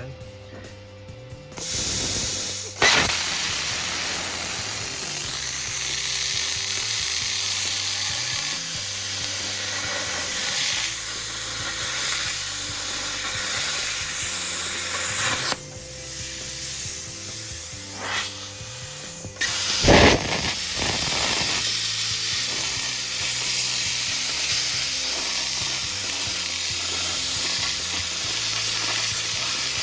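Thermal Dynamics Cutmaster 51 plasma cutter cutting 16-gauge steel plate at about 30–35 amps: a loud, steady hiss of the arc and air jet that starts about two seconds in, stops for a few seconds about halfway through, and starts again with a sharp burst.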